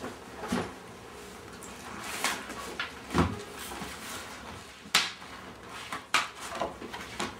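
A briefcase and a folder handled on a table: a dull thump about three seconds in, then several sharp clicks in the second half.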